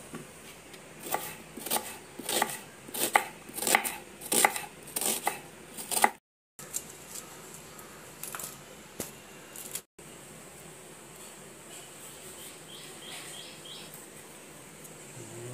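Kitchen knife chopping vegetables on a wooden cutting board: a run of steady strokes, about two or three a second, followed by a quieter stretch with only a few light taps and handling sounds.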